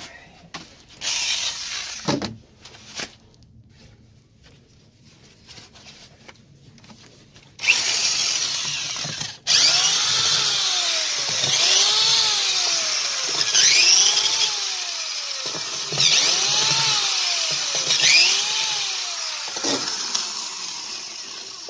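Electric screwdriver backing self-tapping screws out of a chainsaw's plastic handle housing. There are a few short runs at first. From about a third of the way in it runs almost continuously, the motor speeding up and slowing again about every two seconds, with one brief stop.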